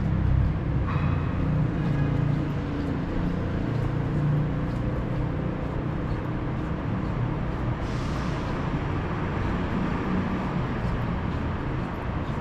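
City street traffic: a steady low rumble of passing vehicles, with a brief high squeal about a second in and a short hiss around eight seconds in.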